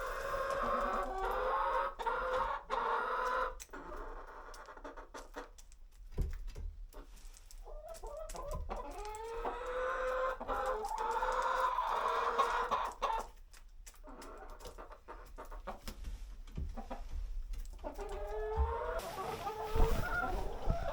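A hen clucking and calling, in three stretches of drawn-out notes that bend up and down, with short pauses between.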